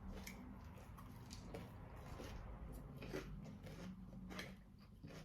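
Faint close-up chewing and biting of fried pork, with scattered soft crunches and mouth clicks.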